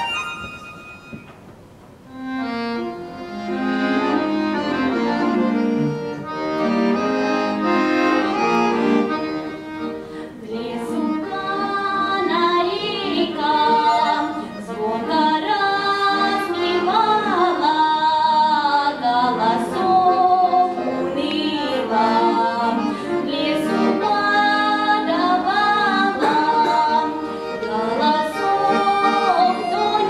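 Bayan (Russian button accordion) playing an introduction, joined about twelve seconds in by a girl's voice singing a Russian folk song to its accompaniment.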